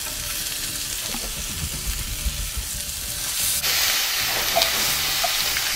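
Stuffed pork chops sizzling as they sear in a hot cast-iron skillet, with the metal tongs moving them about. The sizzle grows louder about three and a half seconds in, as another chop is laid into the pan.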